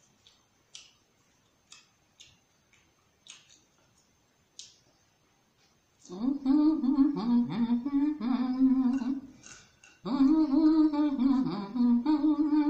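A woman humming with her mouth closed in two stretches, short held notes stepping up and down, starting about six seconds in, while eating prawns. Before that, only a few faint clicks.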